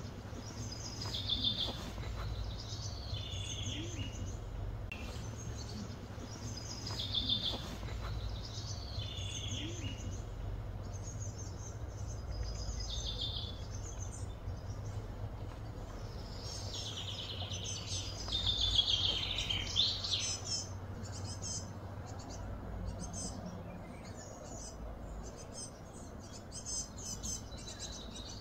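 Birds calling in short, repeated high phrases every few seconds, busiest about two-thirds of the way through, then quick short chirps toward the end, over a steady low hum.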